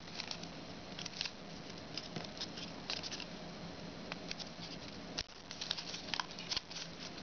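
Origami foil paper crinkling and ticking under the fingers as it is folded and creased: a scatter of small, irregular clicks.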